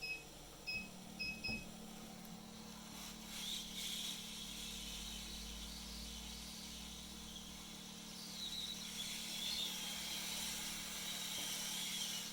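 Several short electronic beeps in the first second and a half, then a steady low hum with an airy hiss that grows a little stronger in the second half.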